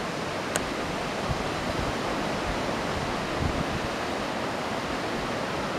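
Steady wash of sea surf and wind, with light wind buffeting on the microphone now and then.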